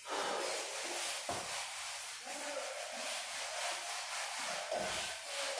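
Hand eraser wiped back and forth across a whiteboard, a dry rubbing hiss in repeated strokes as the writing is cleared off.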